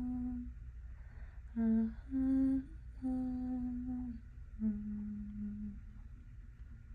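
A woman humming a slow, wordless tune. A held note ends half a second in, followed by four more notes of a half second to about a second each, with short pauses between them.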